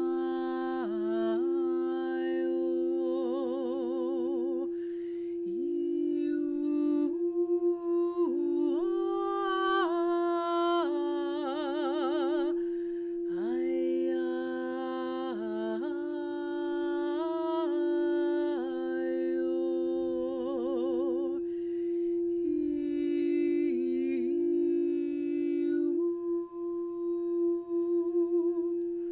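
A quartz crystal singing bowl, the heart chakra bowl, rings one steady, unbroken tone. Over it a woman's voice sings long wordless notes with vibrato, moving from pitch to pitch.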